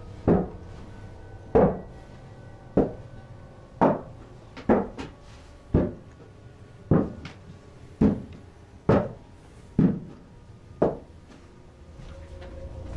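A series of loud knocks or bangs, about one a second and roughly a dozen in all, each ringing out briefly. They stop about two seconds before the end.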